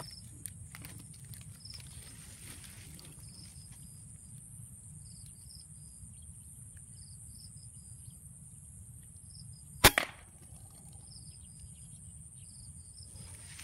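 A single air rifle shot, a sharp crack about ten seconds in, followed at once by a smaller second crack. Behind it run a steady high buzz of insects and short, repeated high chirps.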